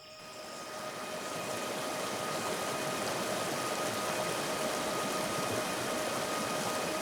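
Steady hiss of rain fading in over the first couple of seconds and then holding, with faint held tones of background music beneath.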